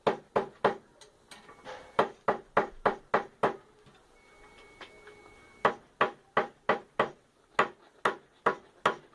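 Hammer tapping small cut metal plates flat, quick sharp strikes about two to three a second in runs, with a pause of about two seconds midway. The plates are being straightened after they bent when cut.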